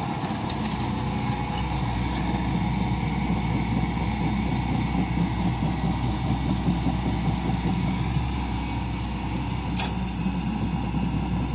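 Hitachi Zaxis 110 excavator's diesel engine running under load while its hydraulic mulcher head grinds chipped oil palm trunk, a steady rough churning. A single sharp knock about ten seconds in.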